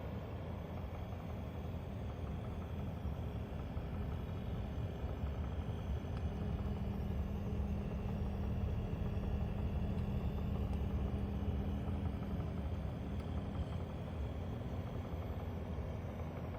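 Panasonic F-YV32LX inverter dehumidifier running on maximum fan speed: a steady low hum and rumble, with a droning tone that swells in about six seconds in and fades out around twelve seconds. The owner takes this for abnormal fan noise and compressor resonance.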